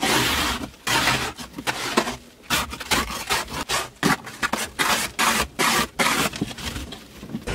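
Ice scraper scraping packed snow and ice off a car windshield, heard from inside the car: a run of quick, rough strokes against the glass, irregular, about one or two a second.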